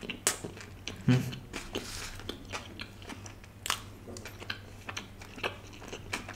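Close-up biting and chewing of a toasted sandwich: irregular crisp crunches of the grilled bread with wet chewing between them, the loudest bites near the start and about a second in.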